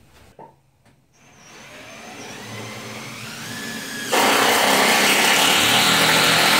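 Handheld power drill running: its motor winds up gradually over about three seconds, then jumps abruptly to full, loud running about four seconds in.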